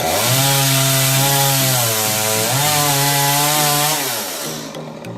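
Two-stroke chainsaw cutting coconut palm wood at high revs, its pitch sagging and recovering as the chain bites. About four seconds in the revs fall away and the saw drops back toward idle.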